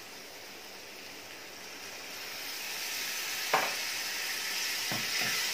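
Onion, tomato and capsicum masala sizzling in butter in a hot pan, the sizzle growing louder about two seconds in as water is added. One light knock comes a little after halfway.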